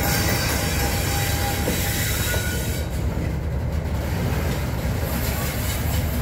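Class 37 diesel locomotive's English Electric V12 engine running as it passes, with its wheels rolling on the rails, easing off slightly as it draws away.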